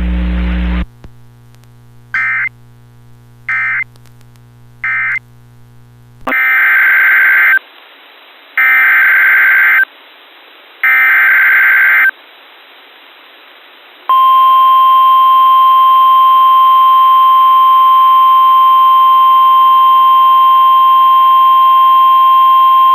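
Emergency alert tones from a NOAA Weather Radio broadcast. Three short beeps come first, then three bursts of SAME digital header data about a second each, and after a pause a long steady warning alarm tone of about nine seconds, announcing a new severe thunderstorm warning.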